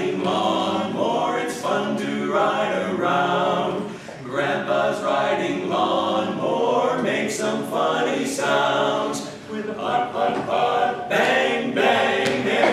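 Barbershop quartet singing a cappella in close four-part harmony.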